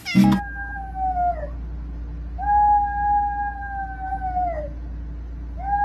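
Small dog howling with its head raised: two long, steady howls that each fall in pitch at the end, and a third beginning near the end.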